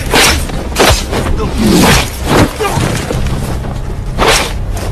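Film action-scene sound effects: a run of heavy booms and impacts, about half a dozen spread across a few seconds, over a music score.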